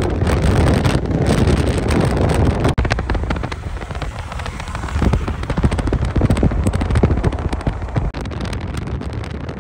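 Heavy wind buffeting the microphone, with dense crackling and popping throughout and two brief dips in level.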